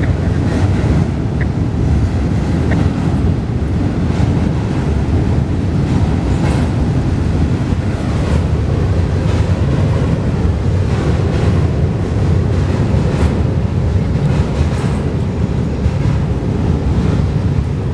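Florida East Coast Railway freight cars rolling across a steel drawbridge: a steady, loud low rumble with a clack about every second or two as wheels cross rail joints. Wind buffets the microphone throughout.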